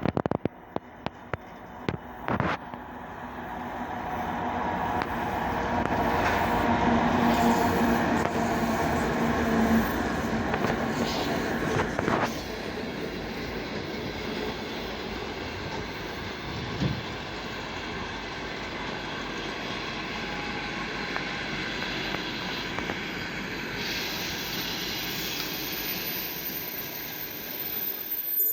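3M62U diesel locomotive with its two-stroke engines passes hauling a passenger train. The engine sound builds as it approaches and is loudest a few seconds in, then gives way to the steady rolling of the coaches, with wheel clatter and occasional knocks over rail joints.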